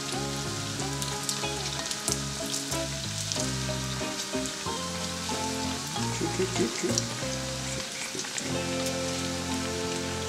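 Yeast doughnuts deep-frying in hot oil: a steady sizzle with many fine crackles. Background music with changing chords and a bass line plays throughout.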